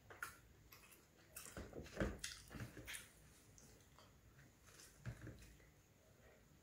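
Quiet, soft wet squishes and clicks of food being handled: thick dhal tipped from a glass bowl onto rotti, then fingers tearing the rotti and mixing it into the food. A louder cluster with a thump comes about two seconds in, and another short burst about five seconds in.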